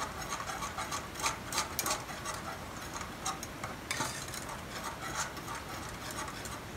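Wire balloon whisk stirring thick milk pudding in a pot, its wires scraping and clicking irregularly against the pot's sides and bottom as the pudding starts to thicken.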